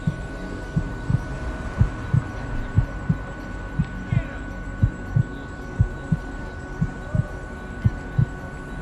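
Heartbeat sound effect: a low double thump, lub-dub, about once a second, over a faint background hum.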